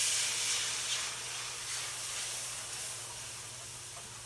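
Cold milk poured into a hot skillet of oil and browned flour roux, hissing and sizzling loudly as it hits the pan. The hiss is loudest at first and settles slowly into a steadier sizzle.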